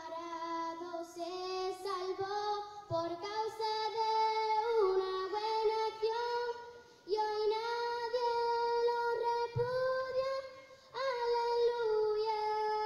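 A young girl singing a slow melody into a microphone, holding long notes and pausing briefly between phrases.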